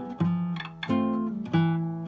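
Solo classical guitar playing a melody, several notes plucked in turn and left ringing over lower bass notes.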